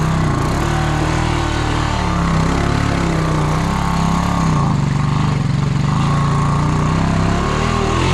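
Honda Rancher 350 ATV's single-cylinder four-stroke engine running under load, its pitch rising and falling with the throttle.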